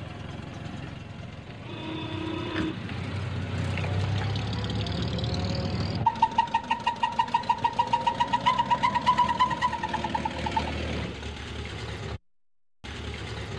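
Antique cars' engines running as they pass, the rumble swelling toward the middle. A short steady tone sounds about two seconds in, and a pulsing tone of about four or five beats a second rises over the engines from about six seconds in for several seconds. The sound cuts out abruptly shortly before the end, then briefly returns.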